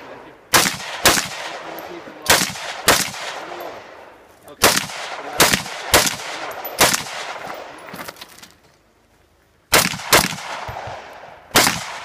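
Semi-automatic rifle shots fired in an IPSC rifle stage: about a dozen shots, mostly in quick pairs, each followed by a short echo, with a pause of about a second near three quarters in before firing resumes.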